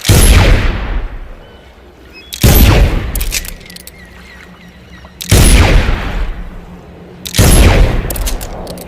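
Pistol shots, four single shots about two to three seconds apart, each with a long echoing tail that fades away. Faint clicks follow the second and fourth shots.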